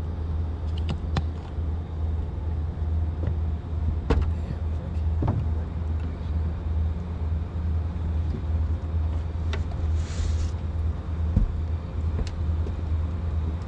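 Steady low motor rumble, with a few light knocks and clicks and a brief hiss about ten seconds in.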